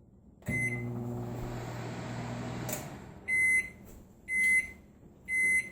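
Microwave oven running with a steady hum for about two seconds, then stopping and beeping three times, about once a second: the end-of-cycle signal that the heating is done.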